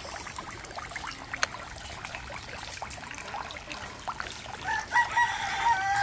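Water trickling and splashing in a small tiered cement garden fountain, with scattered drips. About five seconds in, a rooster starts crowing in long held notes, and this is the loudest sound.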